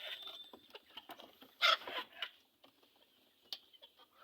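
Native chickens in a small coop: scattered light taps and scratches, with one short, louder hen call about one and a half seconds in.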